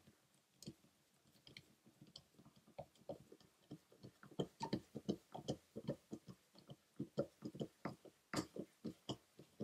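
Screwdriver turning a backstrap screw into a Colt Single Action Army revolver's frame: a run of small irregular clicks and scrapes from the blade working in the screw slot, sparse at first and coming thicker from about halfway.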